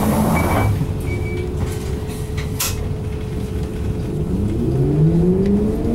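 Isuzu Erga Hybrid city bus heard from inside the cabin, pulling away: a short hiss of released air at the start, then from about four seconds in the 6HK1 diesel engine's note rises steadily as the bus accelerates.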